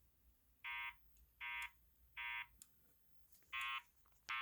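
EST Genesis fire alarm speaker strobe sounding a three-beep temporal-3 evacuation tone: short beeps about three-quarters of a second apart, in threes with a longer pause between groups. Two beeps of the next group come near the end. This is the alert tone that precedes the spoken evacuation message.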